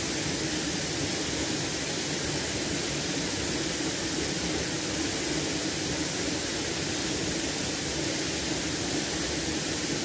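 Waterfall pouring over rock into a pool: a steady, unbroken rush of falling water.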